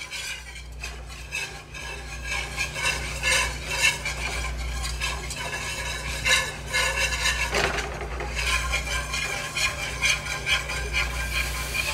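Wire whisk scraping and rattling rapidly around a nonstick skillet, whisking a butter-and-flour roux smooth, with one louder scrape about two-thirds of the way through.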